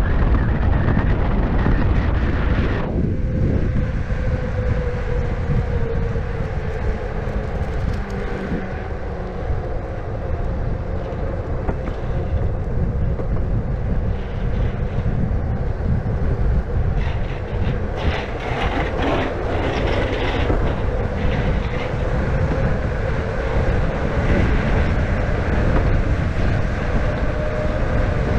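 Electric skateboard with direct-drive hub motors rolling along at speed: a steady rumble of the wheels on the pavement and wind, with a motor whine that drops in pitch a few seconds in and then holds steady. A run of clicks about two-thirds of the way through.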